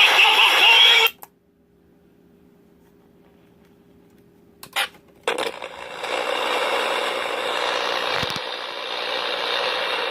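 Small speaker of an assembled FM radio kit: the station's broadcast cuts off about a second in, leaving a faint steady hum, then a few clicks near five seconds and a steady hiss of static between stations for the rest.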